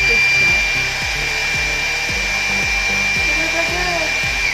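Small handheld heat gun blowing with a steady, high-pitched motor whine while it heat-shrinks plastic seals over jar lids; it cuts off near the end.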